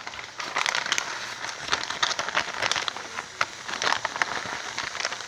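Melted butter and milk sizzling in a small saucepan on the heat, a steady hiss full of small irregular pops, while shredded cheese is poured in from a plastic bag.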